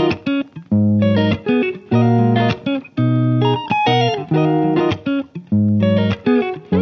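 Background music: a plucked guitar melody over a bass line with a steady beat.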